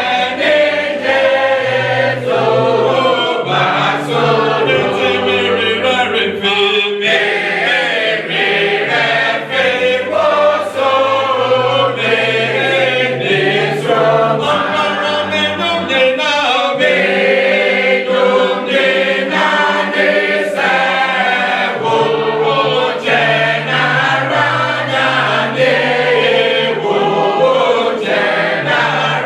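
A church choir singing a hymn in several parts with unaccompanied voices. A low bass line moves under the held upper harmonies.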